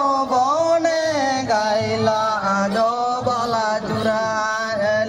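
Male voices singing a Santali Karam dance song in long, drawn-out notes, in a chanting style.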